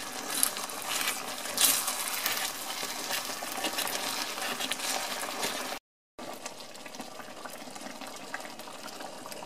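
Wooden spoon stirring risotto rice and chicken through hot broth in a pan, with wet scraping and a couple of sharper scrapes in the first two seconds. After a brief break about six seconds in, the broth simmers with a quieter, steady bubbling hiss as the rice absorbs it.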